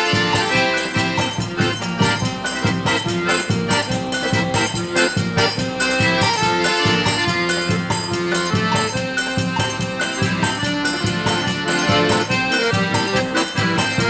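Festa junina quadrilha music: accordion-led forró-style folk music with a fast, steady beat.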